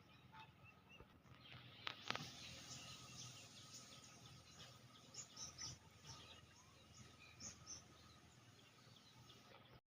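Faint rural outdoor ambience with many short, high bird chirps scattered throughout, and a couple of sharp clicks about two seconds in.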